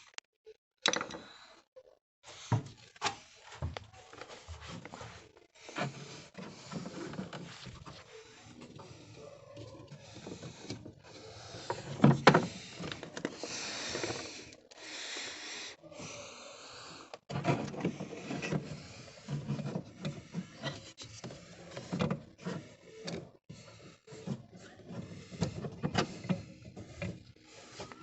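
Irregular knocks, clicks and rubbing of things being handled, with a loud knock about twelve seconds in.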